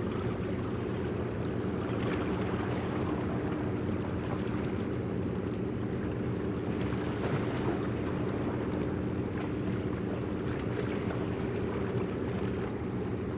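Steady low engine hum of the helicopter destroyer JS Kaga under way, with a few unchanging tones over a rushing noise of wind and water.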